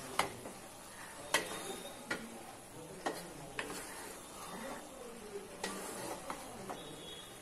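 Wooden spatula stirring chopped vegetables and lentils in an aluminium pot, knocking and scraping against the metal sides at irregular moments, about seven times, over a faint sizzle from the pot cooking on the flame.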